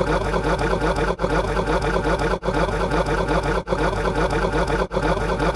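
A short buzzing, mechanical-sounding clip played on a loop, restarting about every 1.2 seconds with a brief cut between repeats.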